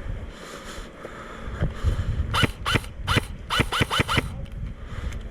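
Airsoft gun firing a quick string of about seven single shots, irregularly spaced, each a sharp crack with a short rising twang, over wind-like rumble and handling noise on the microphone.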